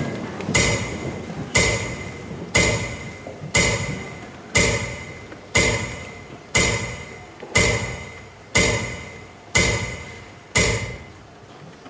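Metronome beating slowly, about once a second, each beat a sharp knock with a short ringing tail: the beat of a minute of silence for the fallen.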